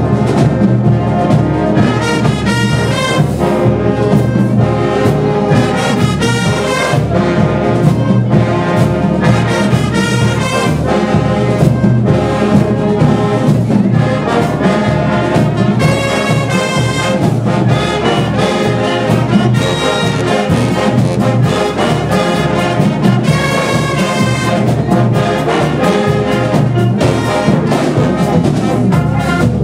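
Marching band brass section of trumpets, trombones and sousaphones playing a tune loudly without a break.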